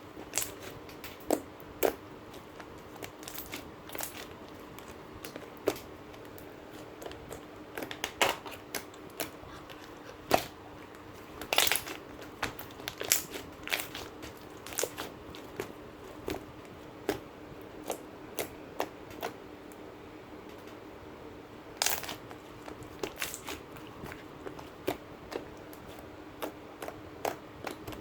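Slime being squeezed and worked by hand, giving irregular sharp clicks and pops, a few a second, as air pockets burst.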